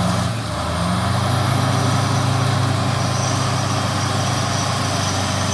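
Diesel wheel loader engine running steadily.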